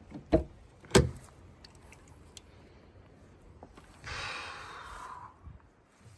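Two sharp thuds about half a second apart, typical of a vehicle door clunking open and slamming shut. Then, about four seconds in, a hissing rush lasting just over a second.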